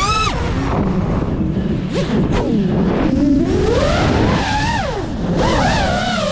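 FPV quadcopter's brushless motors whining, the pitch swooping down and back up several times with the throttle through flips and dives, with a rushing noise of wind and prop wash between the swoops.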